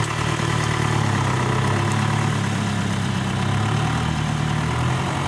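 Small cab-over dump truck's engine running at low revs as the truck pulls away at a crawl.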